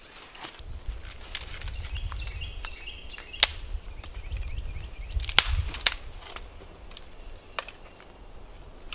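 Dry dead sticks and twigs cracking and snapping as they are pulled from a brush pile and broken by hand. There is a steady crackle with several sharp snaps, the loudest about three and a half and five and a half seconds in.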